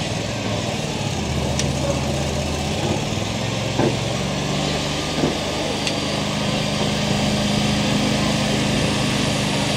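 An engine running steadily with a low hum over an even hiss, with two short knocks about four seconds in and again a second and a half later.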